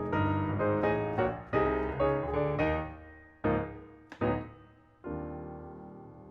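Background piano music: a quick run of notes for about three seconds, then a few separate chords, the last one held and slowly fading.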